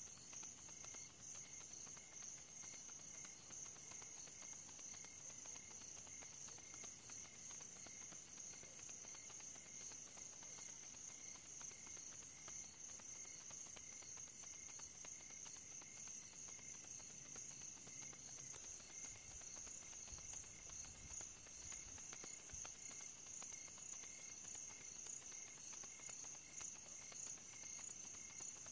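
Crickets chirping: a steady high trill with fainter chirps pulsing about twice a second.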